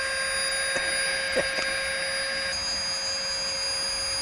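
Small electric air pump inflating a sleeping pad: a steady motor whine over rushing air. There are a couple of light knocks about a second and a half in, and the whine's tone shifts slightly about two and a half seconds in.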